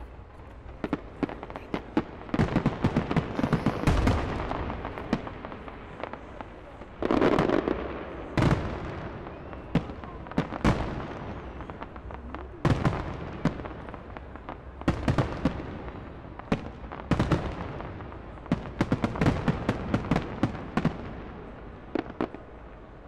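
Aerial fireworks display: shells bursting overhead as many sharp bangs in quick clusters, each trailing off in an echo, with a dense, loud barrage about a third of the way in.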